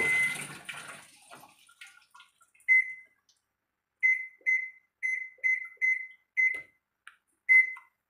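AQUA S70KT washing machine's control panel beeping as its buttons are pressed: about nine short high beeps, one about two and a half seconds in, a quick run of seven over the next few seconds, and one more near the end. The sound of running water fades out in the first second.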